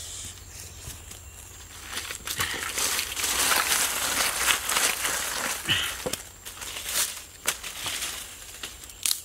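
Dry leaves, twigs and ash scraped with a stick and then gathered by hand: a dense stretch of crunching in the middle, then a few sharp snaps near the end.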